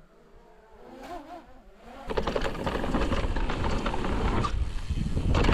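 Rough, rumbling noise of mountain bike riding on a dirt trail, like wind buffeting a microphone along with tyre noise. It starts suddenly about two seconds in after a quiet start.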